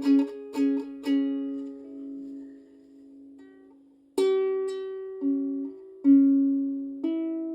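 Soprano ukulele with nylon strings, freshly tuned, being plucked: a quick run of notes in the first second that rings out, then a new note struck about once a second from about four seconds in.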